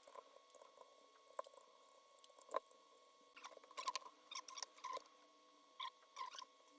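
Faint, scattered light clicks and brief scrapes from handling and working on an AKAI EWI5000 wind controller being opened up for repair, over a faint steady tone.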